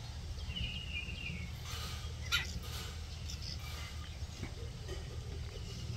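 Babblers giving a short, harsh chirping call about a second in, with a few fainter calls later, over a steady low rumble. A single sharp knock comes a little past the middle.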